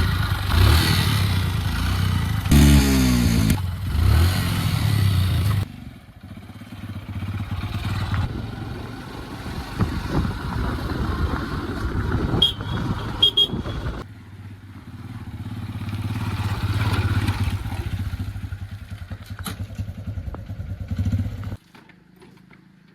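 Heavy diesel machinery engine running under load, with a quick rev up and back down about three seconds in. The sound changes abruptly a few times and drops away near the end.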